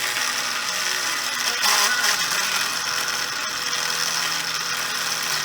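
1965 Delco AC/DC tube radio playing through a damaged speaker: a steady loud hiss and crackle of static, with a faint broadcast voice coming through about two seconds in. The set is working again after new capacitors.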